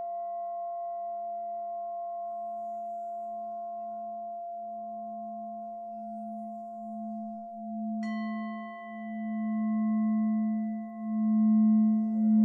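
Singing bowl ringing with several long tones and a slow wobble in its low hum; it is struck again about eight seconds in, and the low hum swells louder over the last few seconds.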